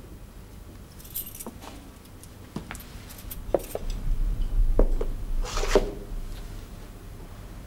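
Light footsteps and small clicks as a man walks across a carpeted room, with a short rustle about five and a half seconds in.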